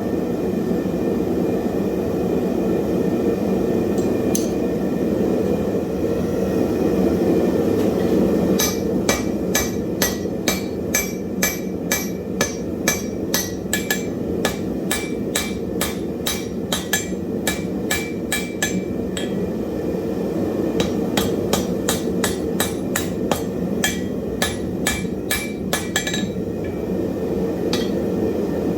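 Hand hammer striking hot wrought iron on an anvil, in quick runs of about two to three blows a second starting about nine seconds in, with a short pause near the twenty-second mark before the blows resume. A steady low roar runs underneath the blows.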